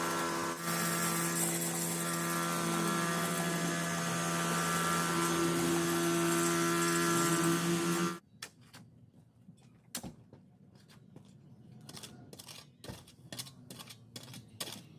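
Stihl KM 90 R KombiMotor with a tiller attachment running steadily, its pitch dipping and rising once, then cut off suddenly about eight seconds in. A few scattered light knocks and clicks follow.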